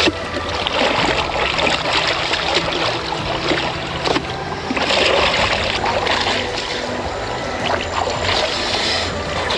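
Water splashing and sloshing in a shallow creek as a T-shirt is scrubbed and wrung by hand, with louder splashes about five seconds in and again near the end as water is splashed over a body.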